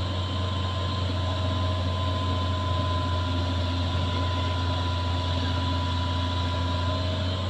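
Hitachi hydraulic excavator's diesel engine running steadily with a low drone and a thin, steady high whine as the machine works its way up onto a truck bed.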